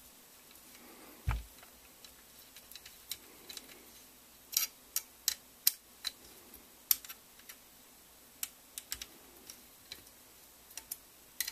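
Hex key turning in the screws of an UltiMAK rail on an AK, giving irregular light metal clicks and ticks as it is worked and reset, with one dull knock of the rifle parts on the mat about a second in.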